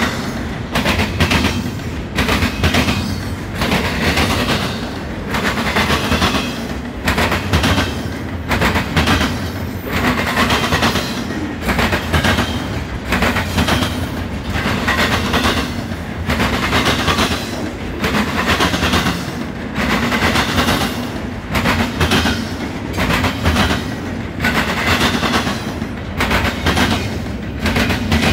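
Double-stack container well cars of a Norfolk Southern intermodal freight train rolling past. Their wheels clack over the rails every second or two over a steady low rumble.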